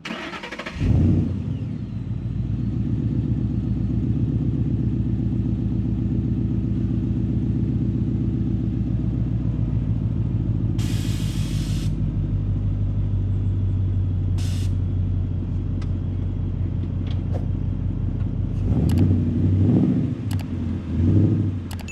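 A 2013 Ford Mustang GT's 5.0 L V8 fires up with a loud flare about a second in, then settles to a steady, lumpy idle. Near the end it is given a few quick throttle blips.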